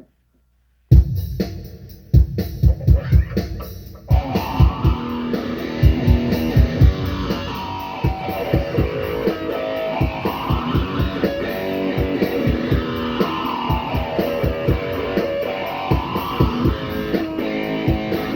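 Band playing rock music at a sound check: drum hits and guitar start abruptly about a second in, and the full band with electric guitar and bass comes in at about four seconds and plays on steadily.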